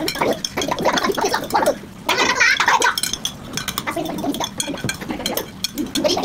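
Children eating at a table: spoons clicking and scraping on plates and bowls, with a child's wordless vocal sound about two to three seconds in.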